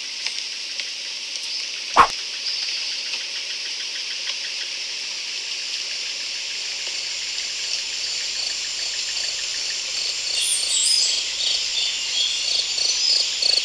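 Tropical jungle ambience: a steady high chorus of insects, with low croaking pulses and bird chirps joining from about ten seconds in. A single sharp click about two seconds in.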